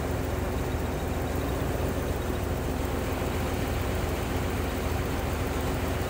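Mercedes W126's M117 V8 engine idling steadily, running to build pressure back up in the rear self-levelling hydraulic system after new accumulators were fitted.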